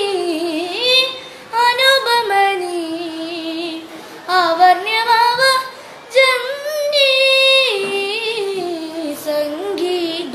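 A boy singing a Malayalam light-music song solo, in long held phrases with wavering ornaments on the notes and short breaths between them.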